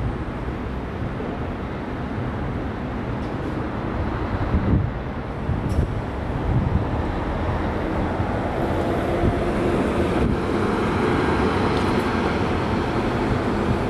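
Steady city traffic rumble, growing louder and fuller from about eight seconds in, with a couple of short knocks around five seconds in.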